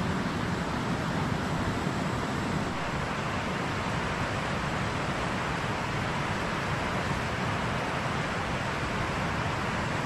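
Steady, even rushing noise of flowing river water, with no distinct events, and a faint thin high tone above it.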